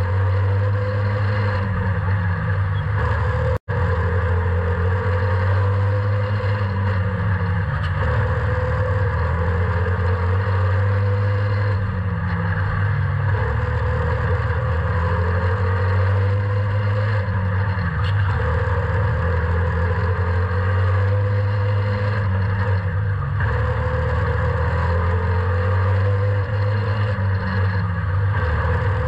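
Slingshot race car's engine running hard, heard on board, its pitch rising and falling every couple of seconds as it is throttled through the corners. The sound drops out briefly about three and a half seconds in.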